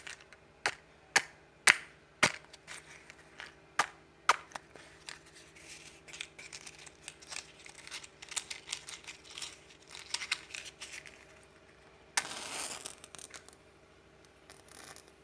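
A flame being lit by hand: a run of sharp clicks, some about a second apart, then a stretch of faster, fainter crackling, and a brief hiss about twelve seconds in.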